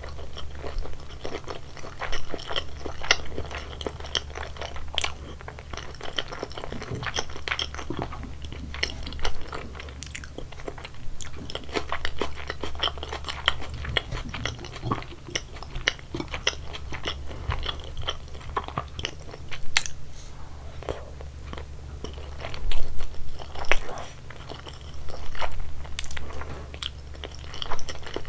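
Close-miked chewing of sushi: a continuous run of crunchy, wet bites and mouth sounds, with a few louder crunches near the end, over a steady low hum.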